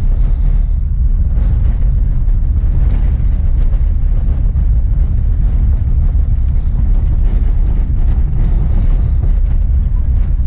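Engine and road noise inside a moving van's cabin: a steady low drone with no breaks.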